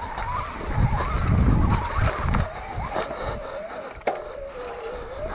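Santa Cruz Bullit e-mountain bike being ridden: its mid-drive motor whines, the pitch wavering up and down as the rider pedals, over a low rumble of tyres and wind on the microphone. A sharp knock comes about four seconds in.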